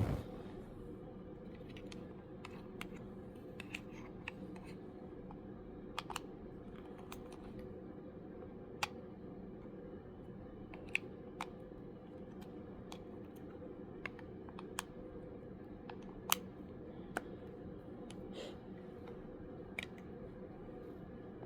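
About twenty sharp, irregularly spaced clicks, the loudest about two-thirds of the way through, over a steady low hum.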